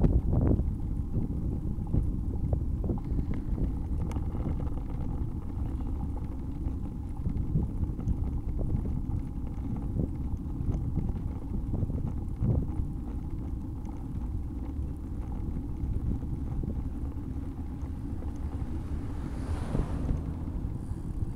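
Wind rumbling on the microphone of a camera riding along on a bicycle, with small scattered clicks. Near the end a brief hiss swells and fades.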